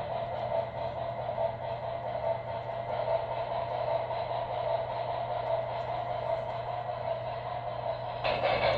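Steady running noise of an HO-scale model train on the layout: a constant mechanical whir over a low hum. It grows louder and fuller near the end.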